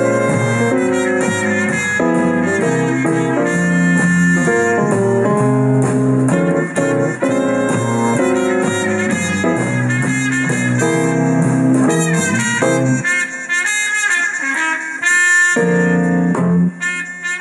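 Trumpet with a straight mute playing a jazz melody, with other parts sounding beneath it. The lowest part drops out for a couple of seconds near the end.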